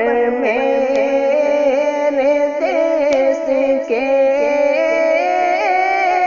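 Wordless vocal background music: a slow, ornamented melody whose pitch wavers and glides over a held lower line.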